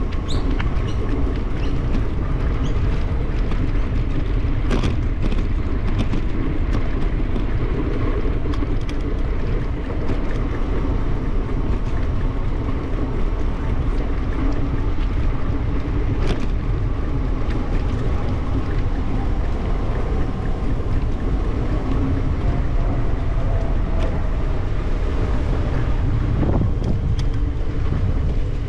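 Wind rushing over a bicycle-mounted camera's microphone while riding, a steady low rumble, with the hum of tyres on an asphalt path and a few light clicks.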